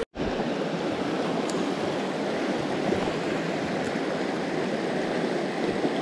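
Mountain stream running over rocks: a steady rush of flowing water.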